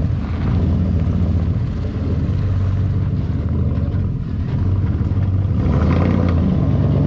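Lifted Chevrolet Avalanche's V8 engine running at low revs as the truck drives slowly out onto the road, a steady low hum. The engine sound grows fuller and louder near the end as the truck comes closer.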